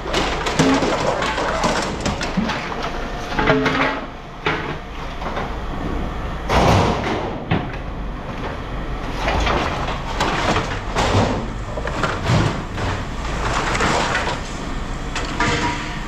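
Lengths of aluminum extrusion scrap clanking and clattering as they are handled and tossed into sorting bins, with repeated sharp metal impacts over a steady low rumble.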